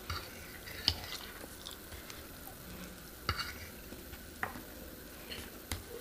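Metal fork clicking and scraping against a wooden serving board and a paper noodle cup while vegetables are picked up, with about five sharp taps spread through.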